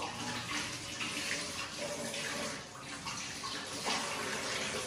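Kitchen tap running into a steel sink as raw chicken pieces are rinsed by hand under the stream.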